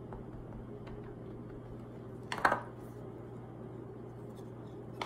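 A single short tap of a plastic ink pad against clear stamps on a plastic carrier sheet, about halfway through, over a steady low hum.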